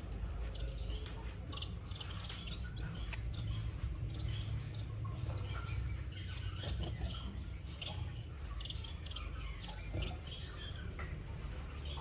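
Finch nestlings begging in the nest: a rapid run of thin, high chirps, a few rising sharply, over a low steady hum.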